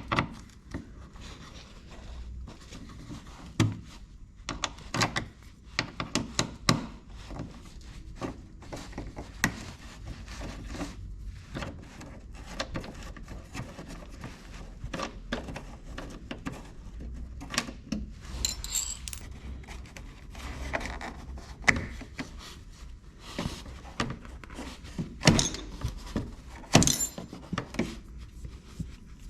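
Hand tools and plastic car covers being handled as the covers are unfastened and taken off: irregular clicks, knocks and metallic clinks, with a brief scraping about two-thirds of the way through and a few louder knocks near the end.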